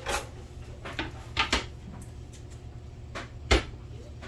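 A few separate knocks and clatters in a kitchen, like cupboard doors or drawers being handled, the loudest about three and a half seconds in, over a steady low hum.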